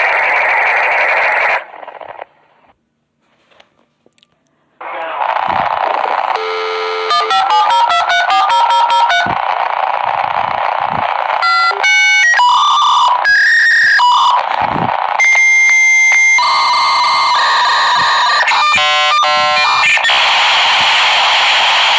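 Dial-up modem handshake noise. A hiss cuts off about a second and a half in and leaves a few seconds of quiet. The hiss then comes back under runs of rapid beeps and shifting held tones, and settles into steady hiss near the end.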